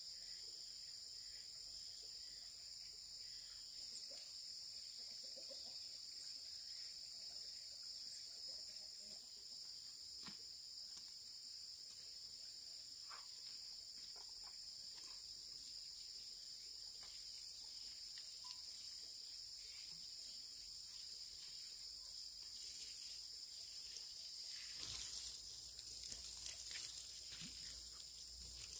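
Steady high-pitched insect chorus droning, with scattered faint knocks and rustles that grow a little louder near the end.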